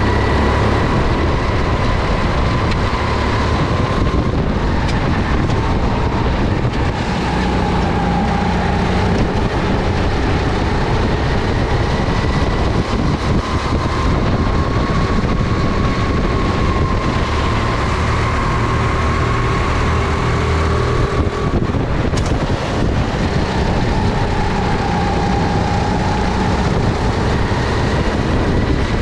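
Honda GX270 single-cylinder four-stroke engine of a SODI RT10 rental kart running under load on track, its pitch slowly rising and falling with the kart's speed through the corners.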